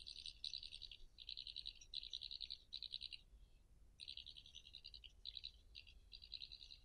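European badger chittering: faint bouts of rapid, high-pitched clicking chatter, one after another, with a short break about three seconds in.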